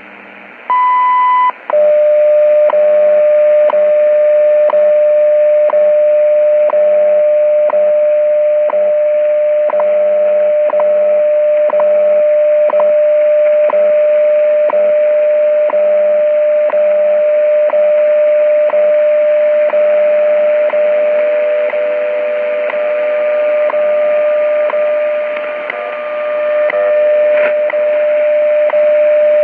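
WWV time signal station received on 5 MHz shortwave through a Tecsun PL-600 radio's speaker: a short high beep marks the top of the minute about a second in, then a steady tone runs with a tick every second over static hiss. The signal fades briefly near the end.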